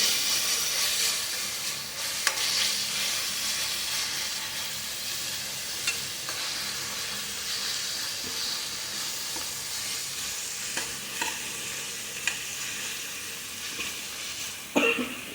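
Shallots and ginger-garlic paste frying in hot oil in a pan: a steady sizzle that slowly fades, with a few sharp ticks and scrapes of a spatula stirring.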